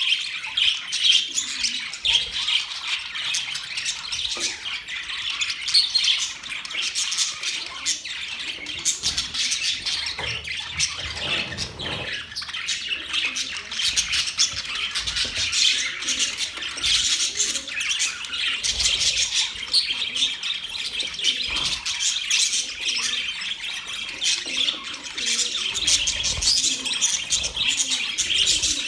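A flock of small birds chirping and chattering continuously, many calls overlapping, with occasional harsher squawks.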